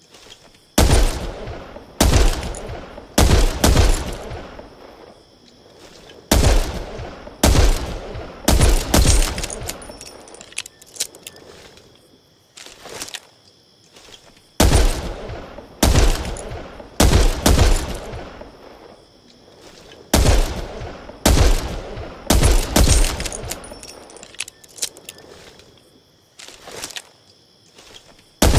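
.357 Magnum revolver firing: single shots in groups of about four, roughly a second apart, each trailing off in an echo, with pauses of a few seconds between groups.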